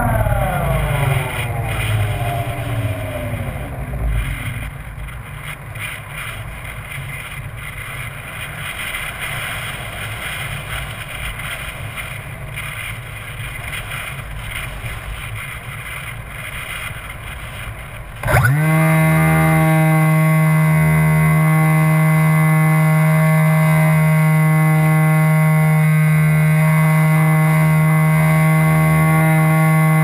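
Model plane's electric motor and propeller winding down in falling pitch as the throttle comes off, then wind buffeting the on-board camera's microphone while it glides. About eighteen seconds in the throttle opens sharply and the motor runs at a steady, even whine.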